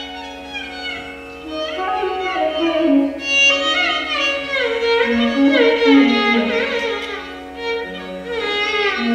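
Solo violin in Carnatic style playing raga Mohanam, its melody sliding and bending between notes in ornamented phrases over a steady drone.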